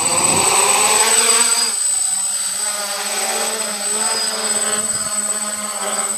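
DJI F450 quadcopter's four brushless motors and propellers spinning up for take-off, rising in pitch over the first second or two, then settling into a steady buzzing drone with a thin high whine as it lifts off and hovers.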